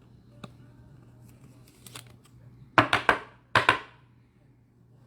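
Trading-card packaging being opened by hand: a faint click, then two loud, quick bursts of tearing and crinkling about three seconds in, the first made of several short strokes.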